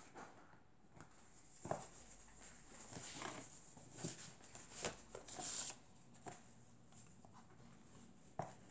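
Sheets of paper and cardstock being picked up, shuffled and set down on a cutting mat: faint scattered rustles and light taps, the loudest a short rustle about five seconds in.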